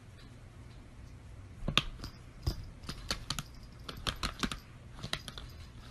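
Laptop keyboard keys clicking in an irregular run of taps, several a second, starting about a second and a half in.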